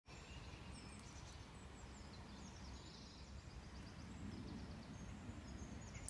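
Faint outdoor ambience: small songbirds calling, many short high chirps and quick trills, over a low steady rumble.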